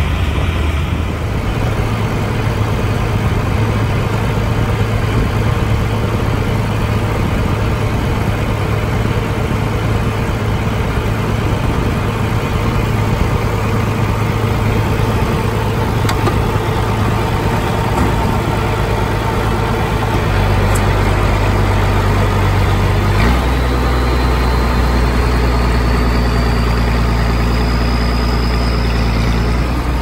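Allis-Chalmers 7030 tractor's six-cylinder turbo diesel running steadily under load, pulling a John Deere 566 round baler through the windrows. The engine note grows louder and deeper about two-thirds of the way through.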